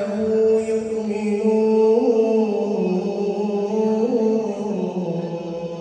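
A man reciting the Quran in a melodic, chanted style: one voice holding long notes with ornamented turns in pitch, dropping lower near the end.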